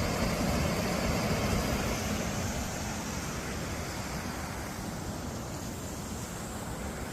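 Waterfall rushing: a steady roar of falling water that slowly grows a little quieter.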